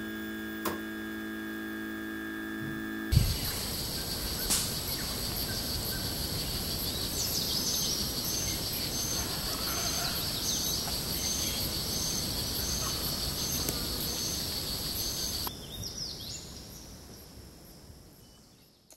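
Rainforest ambience from Costa Rica: a dense insect chorus with high, steady buzzing and a short chirping call repeating about once a second, fading out near the end. It is preceded for the first few seconds by steady held tones that stop abruptly.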